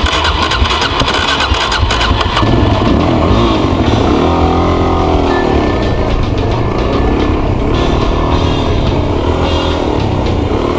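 Suzuki DRZ400S dual sport motorcycle's single-cylinder engine running while the bike is ridden through sand, its revs rising and falling as the throttle is worked.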